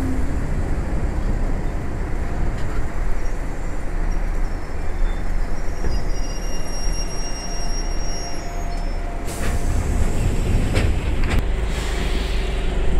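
Enshu Railway 1000 series electric train running, heard from inside the car by the gangway between cars: a steady rumble of wheels on rail and the running gear, with a thin high squeal in the middle and a few sharp knocks in the later part.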